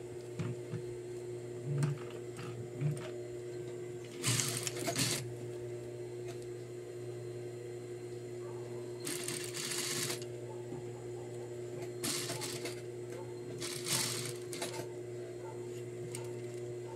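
Sewing machine stitching fabric in four short runs of about a second each, over the steady hum of its motor, with a few light clicks near the start.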